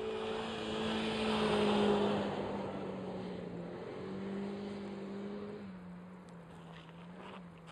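Car engine held at steady high revs while drifting on snow, with a rushing noise over it. Loudest about two seconds in, then fading as the car moves off, the engine pitch dropping slightly near the end.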